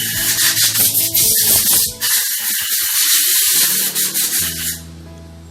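Loud rushing, rustling noise on the microphone over soft background music; the noise stops about five seconds in, leaving only the music.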